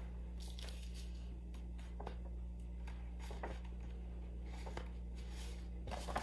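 Pages of a hardcover picture book being opened and turned: faint paper rustles and light taps, busier near the end, over a steady low hum.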